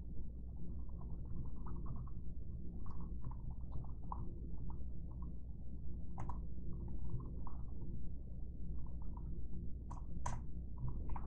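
Faint clicking of a computer mouse and keyboard over a steady low electrical hum, with a few sharper clicks about six seconds in and twice near the end.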